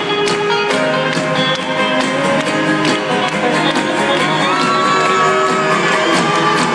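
Live band playing an instrumental passage, with guitar and a steady drum beat of about three strokes a second under held notes.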